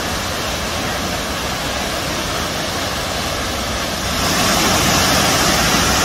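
Steady rushing roar of a large waterfall. It becomes louder and brighter about four seconds in.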